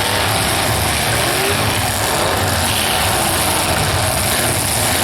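Demolition derby cars' engines running and revving, loud and steady.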